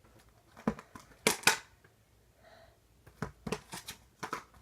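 Slime and plastic slime containers being handled: a few short sharp clicks and scrapes, the loudest a rasping burst about a second and a half in, then a quicker run of clicks near the end.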